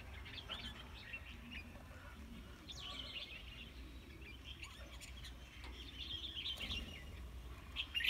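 Small birds chirping: many short, high chirps overlapping throughout over a low background rumble, with a louder chirp near the end.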